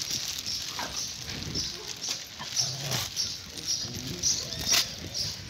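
Street dogs whimpering and giving short yips as they circle and sniff each other. A sharp click is loudest, about four and a half seconds in, and a high chirp repeats about twice a second behind them.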